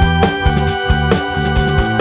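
Background music with a steady beat: held tones over a repeating bass line, with plucked-string sounds.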